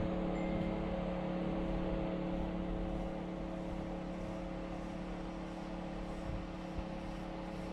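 Steady machine hum with several held tones, with two faint knocks near the end.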